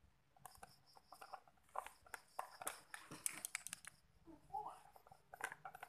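Faint, scattered clicks, taps and scrapes from handling a blender's plastic motor base while a thin tool works lubricant into the seized motor shaft bearing.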